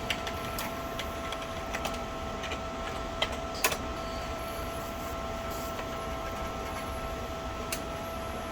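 Desktop PC running, its fans giving a steady hum with two steady whining tones over it, and scattered sharp clicks, the loudest a little under four seconds in.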